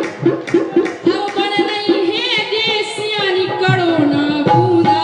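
Bundeli Rai folk song sung live into a microphone by a young male singer in a wavering voice, over a quick drum beat, through a stage sound system.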